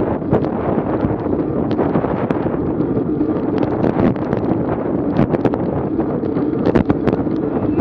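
Strong wind buffeting a GoPro's microphone on a racing bicycle at speed, a steady rumbling noise with scattered sharp ticks.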